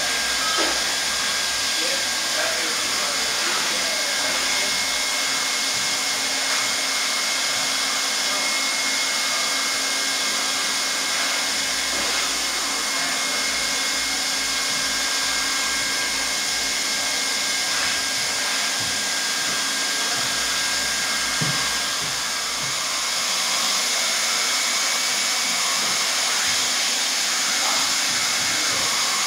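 Hot-air welding gun for linoleum and vinyl floor seams, its blower running steadily with an even hiss and a faint thin whine.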